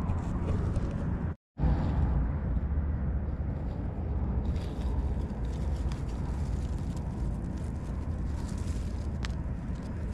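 Low, steady rumble of wind buffeting the microphone, broken by a brief dropout to silence about a second and a half in. From about four and a half seconds there is a light crackling rustle of leaves and forest litter as a gloved hand reaches into the undergrowth.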